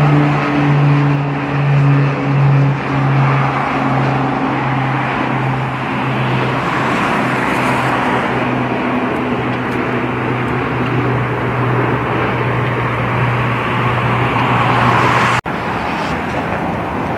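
Jet airliner engines running, a steady low drone under a broad rushing noise that lasts throughout, cut off abruptly about fifteen seconds in and followed by similar engine noise.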